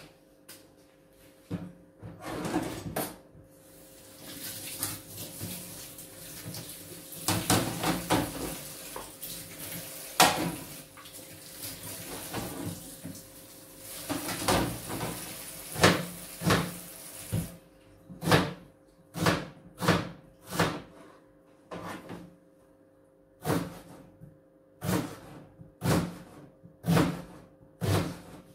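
Kitchen tap running into a stainless steel sink for about fourteen seconds, with the knock of things handled under it. It stops, and then a knife chops on a plastic cutting board, about two cuts a second with short pauses.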